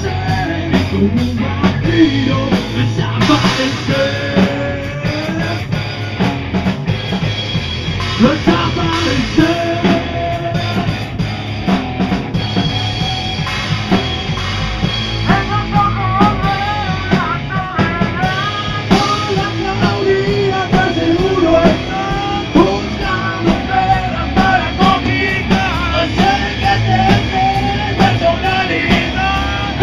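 Hard rock band playing live in a rehearsal room: drum kit, distorted electric guitars and bass, with a lead line wavering in pitch through the second half.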